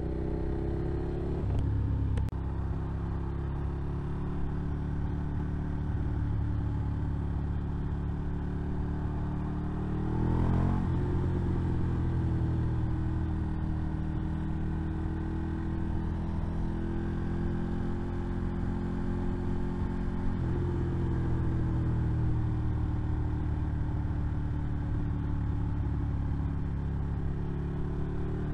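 Ducati motorcycle's V-twin engine running at road speed, with wind rush on the helmet microphone. The revs climb quickly about ten seconds in and then ease off slowly, and the engine note changes again near twenty seconds.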